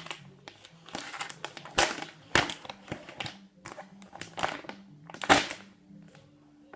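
Hands opening a phone's retail box: irregular rustling, scraping and crinkling of the packaging, with sharper, louder handling noises about two seconds in and again a little past five seconds.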